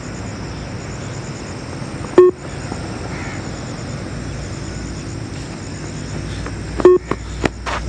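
Two short electronic beeps from the Yo-Yo intermittent recovery test audio, about two seconds in and again near the end, nearly five seconds apart: the timing signals that pace the shuttle runs at speed level 15. A few sharp clicks follow the second beep, over steady background noise.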